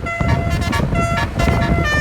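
Tour bus's basuri multi-tone air horn playing a loud telolet tune: several pitches sound together and switch to new notes every fraction of a second, over a low rumble.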